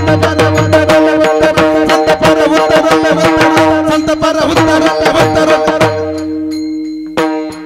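Instrumental bhajan accompaniment: fast tabla drumming over a held tone. The drumming stops about six seconds in, leaving the held tone, and a few spaced strokes sound near the end.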